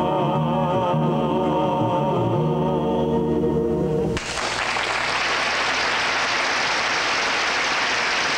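A mixed vocal trio of one man and two women holds a final sung chord with vibrato over accompaniment. The chord cuts off sharply about four seconds in, and applause follows.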